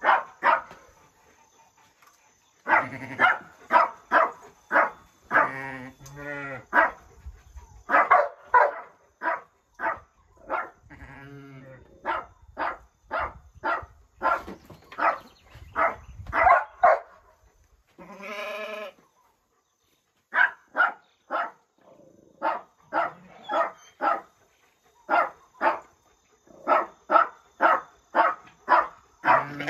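A dog barking in quick runs of short barks, with a few longer sheep bleats among them.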